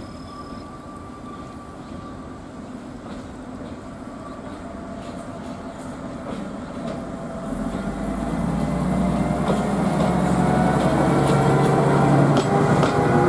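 Ikawa Line diesel locomotive No. 7, dressed as Toby, approaching with its train. Its engine drone grows steadily louder as it nears, and wheel clatter on the rails comes in near the end as it draws alongside.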